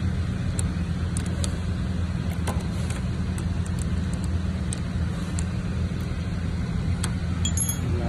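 Steady low machine hum, with scattered light metallic clicks from handling a bicycle rear derailleur and a brief high squeak near the end.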